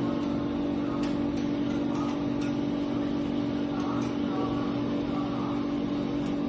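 Steady machine hum, even and unchanging, with a few faint clicks.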